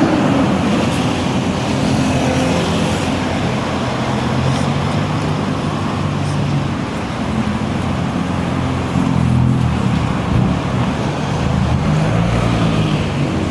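City road traffic: motor vehicles driving past, their engines a low hum that shifts in pitch as they come and go over a steady roar of traffic.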